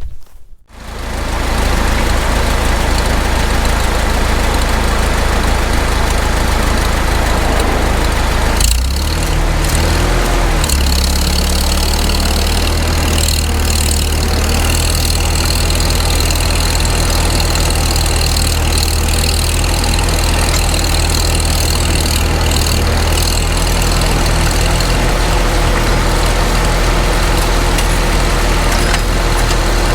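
Farmall Super M tractor's four-cylinder engine running steadily, its pitch shifting about nine seconds in and settling again a couple of seconds later.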